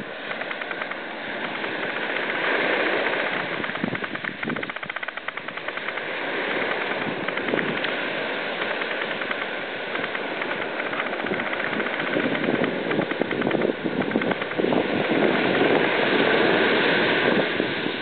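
Ocean surf washing up the beach, mixed with wind buffeting the microphone; the noise swells and eases over several seconds.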